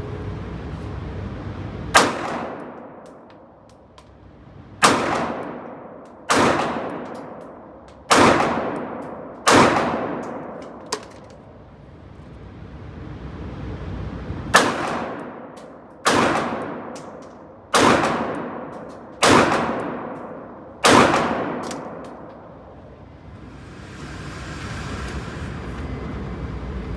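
Ten 9mm shots from Glock pistols, a Glock 43X and a Glock 48, fired in two strings of five about a second and a half apart. Each shot is followed by a long fading ring, and there is a pause of about five seconds between the two strings.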